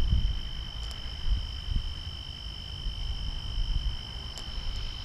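Crickets trilling at night as one steady, high-pitched tone, with a fainter, higher band above it. A low, uneven rumble runs underneath, loudest at the start.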